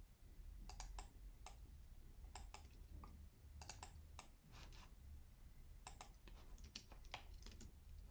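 Faint, irregular clicks of a computer mouse and keyboard, a dozen or so, over a low steady hum.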